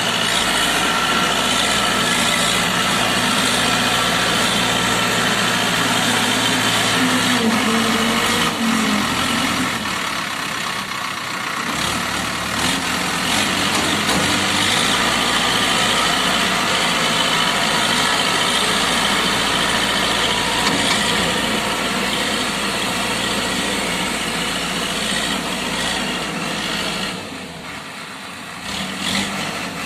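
Old JCB 3D backhoe loader's diesel engine running under work: the note rises about a third of the way in, drops back, then holds steady, and eases off briefly near the end.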